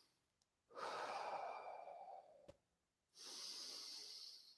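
A person breathing deeply while standing still to recover after a bouncing warm-up: two slow, faint breaths of about a second and a half each, with a faint click between them.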